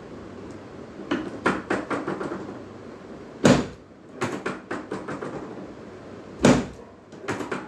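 Knocks and thuds on a chiropractic treatment table as a patient lying face down is adjusted. There are lighter knocks, and two much louder, deeper thumps about three seconds apart.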